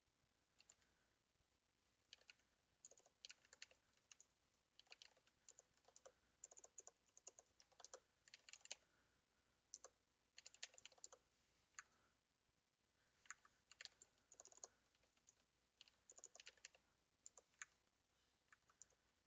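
Faint typing on a computer keyboard: quick runs of key clicks with short pauses between them.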